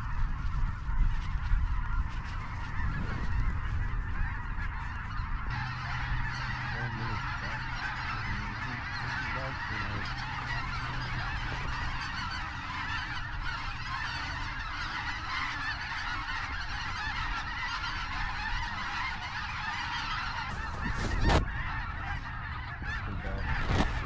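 A huge flock of snow geese calling overhead, a dense, unbroken chorus of many overlapping honks. A single sharp knock sounds near the end.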